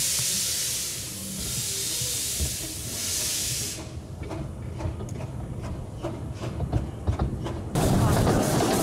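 Steam locomotive of a 15-inch gauge miniature railway letting off steam, a loud hiss that swells and fades a few times and then stops. Scattered metallic knocks and clanks follow, and a louder, denser sound cuts in near the end.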